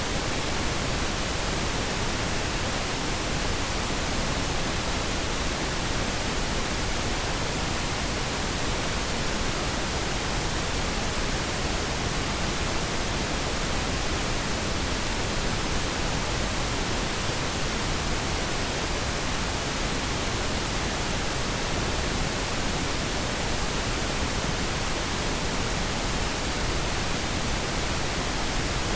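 Pink noise test signal: a steady, even hiss across the whole range with no change in level, used for setting up and calibrating audio systems.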